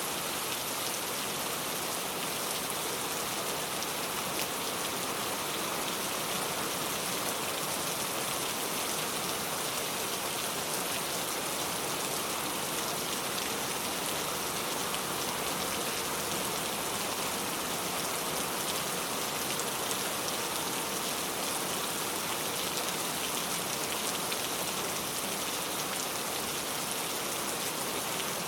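Steady rain falling: an even hiss with a fine patter of drops, unchanging throughout.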